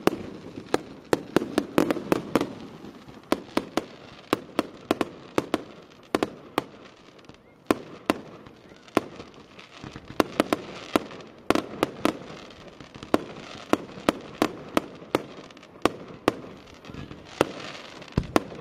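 Aerial fireworks bursting: a rapid, irregular run of sharp bangs and cracks, often several a second, with crackling between them.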